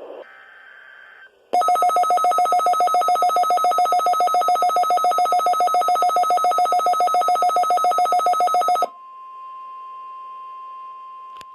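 Emergency alert broadcast signals. The last burst of the digital SAME header ends about a second in. A loud two-tone alert follows, pulsing about six times a second and ringing like a telephone bell. Near the end of its second half it gives way to the quieter steady single 1050 Hz weather-radio alarm tone.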